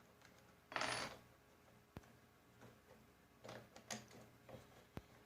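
Faint handling of small metal hardware on a coil nailer: a bolt and nut are pulled from the canister mount and set down. There is a short scraping rattle about a second in, then several light metallic clicks.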